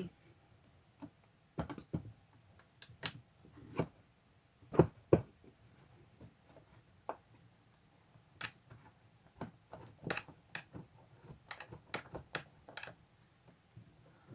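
Irregular clicks and taps from hand work on curtain rod mounting hardware, with two sharper knocks about five seconds in.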